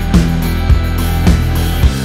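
Background music with a steady drum beat, a little under two hits a second, over held low bass notes.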